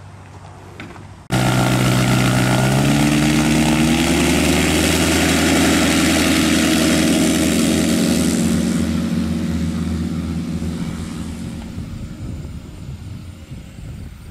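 Pipistrel Sinus motorglider's engine and propeller at takeoff power. The sound cuts in suddenly about a second in and rises in pitch over the next few seconds as the engine revs up for the takeoff run, then holds steady and fades gradually in the second half.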